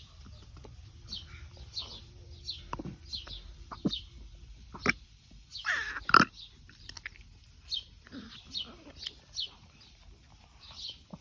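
Ragdoll cat retching and hacking: a run of short, sharp gulping hacks that build to one loud heave about six seconds in, followed by a few weaker hacks.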